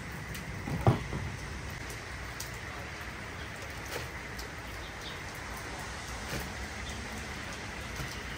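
Fish steaks being put into a plastic zip-top bag: scattered light crinkles and taps, with one louder knock about a second in, over a steady background hiss.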